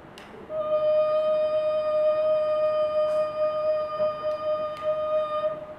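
A single long musical note held at one steady pitch for about five seconds, starting about half a second in and cutting off near the end.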